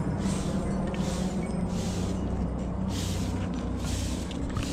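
Helicopter flying overhead in a mountain valley, a steady low drone. Over it, a regular swishing every half second to a second, from footsteps on the concrete path.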